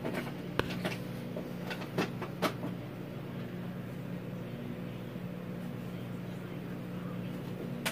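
Small plastic anatomy-model pieces clicking and tapping as they are handled and fitted, a handful of sharp clicks in the first three seconds and one more near the end, over a steady low hum.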